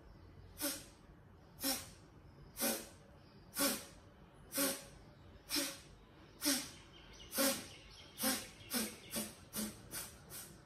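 A woman's sharp, forceful exhalations, one each time her knees flap in the butterfly pose. They come about once a second, then quicken to two or three a second for the last few seconds.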